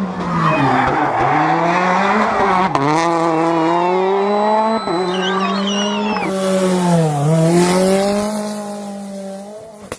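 Rally car engine running hard at high revs, its pitch dipping briefly and climbing back about four times. There is a short tyre squeal about five seconds in, and a hiss of noise over the top in the second half.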